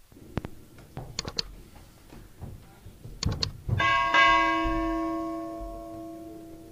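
A few sharp clicks, some in quick threes like a mechanism or latch. Then, a little past halfway, a bell is struck, with a second strike right after, and rings on, fading slowly.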